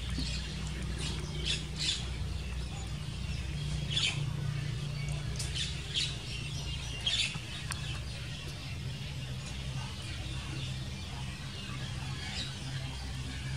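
Short, high chirping squeaks from a small animal, a handful of them scattered mostly through the first half, over a steady low hum.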